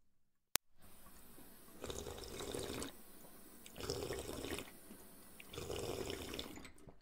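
Underwater water ambience: a bubbling, sloshing wash that swells three times, about every two seconds. A single sharp click about half a second in is the loudest sound.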